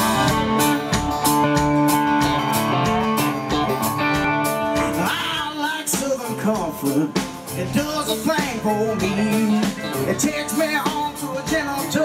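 Live country-rock band playing, with guitars, and a male lead vocal coming in about five seconds in.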